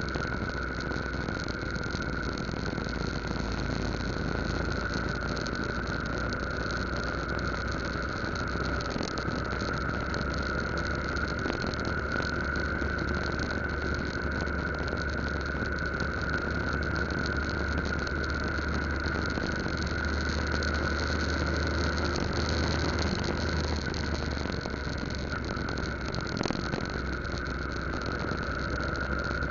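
Yamaha Lagenda 115Z moped's small single-cylinder four-stroke engine running steadily at cruising speed, mixed with a constant rush of wind and road noise over the microphone.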